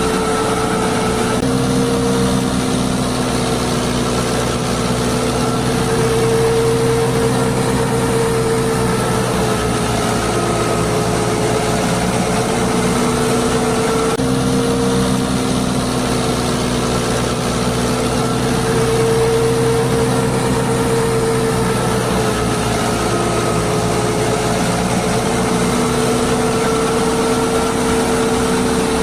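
Small electric motor of a homemade model machine running steadily, a continuous whine that drifts slightly up and down in pitch.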